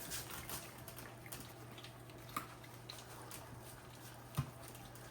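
Puppies lapping goat's milk from a bowl: faint, scattered wet licking clicks, over a low steady hum.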